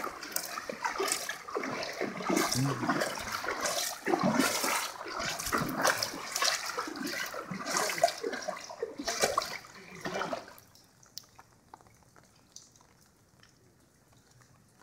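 Floodwater splashing and sloshing as feet wade through it, in irregular surges. It stops about ten seconds in, leaving only a few faint ticks.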